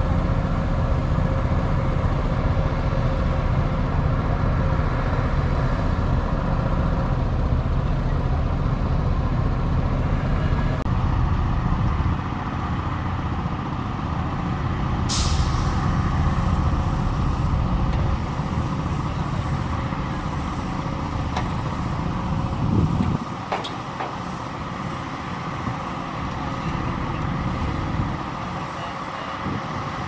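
Shantui DH17C2 bulldozer's diesel engine running under load as it pushes dirt, its low drone lightening partway through. A short, sharp hiss like an air-brake release cuts in about halfway through.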